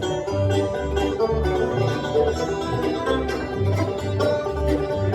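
Bluegrass band of banjo, fiddle, mandolin, guitar and bass playing the opening bars of a tune, the banjo up front and the bass notes pulsing about twice a second.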